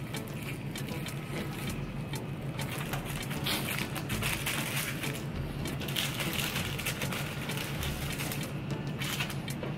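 Background music playing steadily.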